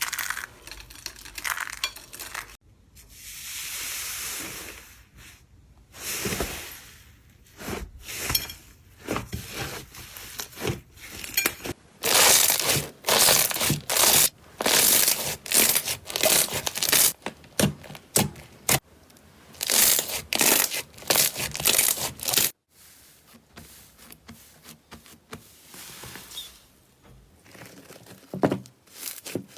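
Slime being worked by hand close to the microphone: crackling, crinkling and tearing squishes. In the middle comes a long run of quick, loud presses, several a second, and the end is quieter.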